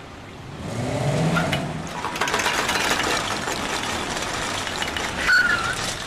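A Jaguar convertible's engine revs up about a second in as the car pulls away, followed by a loud steady rush of noise with fine rattles from the moving car. A short high tone sounds near the end.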